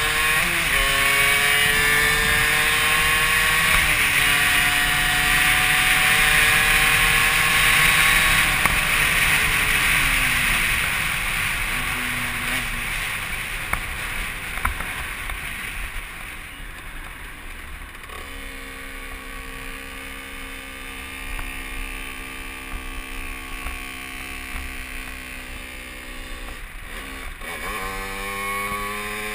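Derbi Senda dirt bike's engine under way with wind rush on the helmet microphone. It revs up and shifts up a gear about four seconds in, holds high revs, then eases off after about nine seconds. It runs lower and steady for a while before picking up again near the end.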